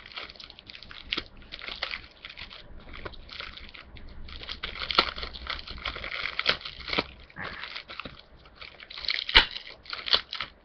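Plastic booster-pack wrapper crinkling and rustling in the hands as it is worked open, in irregular bursts, with a sharp snap about nine seconds in.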